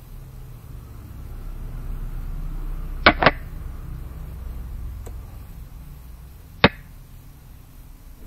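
Move sound effects of an on-screen xiangqi board: a sharp double click a little past three seconds in and a single click about six and a half seconds in, as pieces are placed. A low steady rumble runs underneath.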